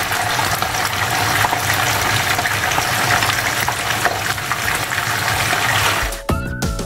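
Tofu cubes deep-frying in a pan of hot oil: a steady sizzle full of fine crackles. It cuts off abruptly about six seconds in, when music begins.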